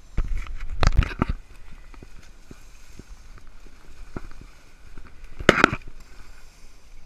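Rustling and crackling of brush and tall weeds, mixed with footsteps, as people push through dense undergrowth on foot. Two louder bursts of brushing come about a second in and again about five and a half seconds in.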